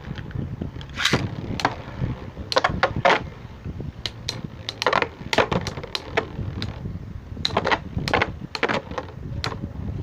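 Metal Beyblade spinning tops, among them L Drago Destroy F:S, whirring in a stadium and clashing with repeated sharp, irregular clacks.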